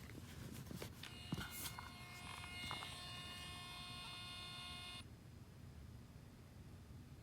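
A few handling clicks, then a small thermal label printer's feed motor whining steadily for about three seconds as it prints and feeds out a label, stopping abruptly.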